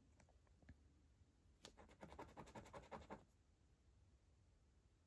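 A coin scratching the coating off a scratchcard: a faint, quick run of scrapes, about eight strokes a second, lasting just over a second from about two seconds in, after a light tick near the start.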